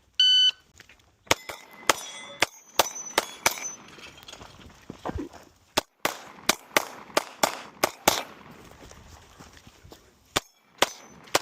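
A shot timer beeps once, then a pistol fires a fast string of about twenty shots over roughly nine seconds, in quick pairs and short bursts, at a practical pistol stage. Several hits are followed by the brief ring of steel targets.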